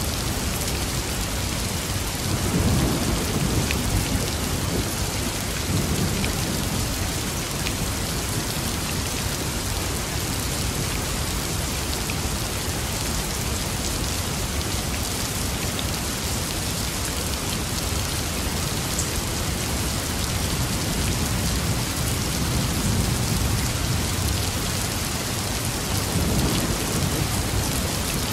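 Steady rain falling through a thunderstorm, with low rolls of thunder swelling about three seconds in, again around six seconds, and twice more near the end.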